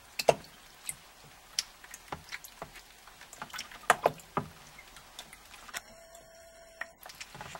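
Call ducklings paddling and dabbling in shallow water in a plastic tray: scattered small splashes and water slaps, loudest just after the start and around four seconds in.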